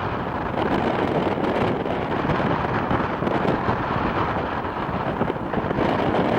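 Strong wind buffeting the microphone: a steady, loud rush of wind noise with no distinct engine tone standing out.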